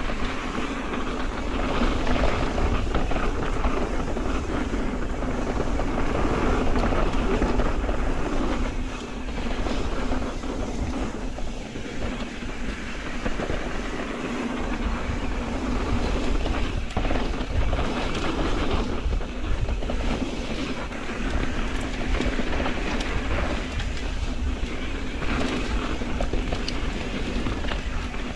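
Mountain bike riding fast down a dirt trail: tyres rolling on packed dirt and the bike rattling over bumps, with steady wind noise on the microphone.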